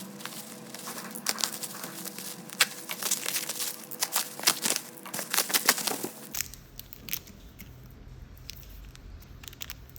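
Plastic packaging crinkling and crackling as it is handled, with many sharp crackles. About six seconds in the sound changes abruptly: the crackles thin out over a low hum.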